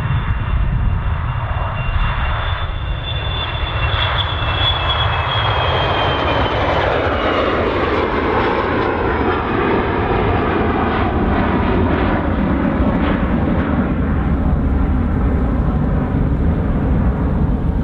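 Rear-engined twin-jet business jet taking off, its turbofans at takeoff power: a loud, steady jet roar with a high whine that slowly drops in pitch as the aircraft passes and climbs away.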